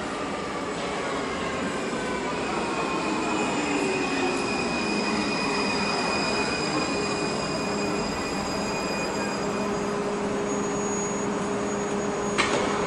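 Munich U-Bahn electric train pulling into an underground station and braking to a stop. Its motor whine falls in pitch as it slows, over steady wheel and rail noise, and it settles into steady high tones from the standing train. There is a single sharp clack near the end.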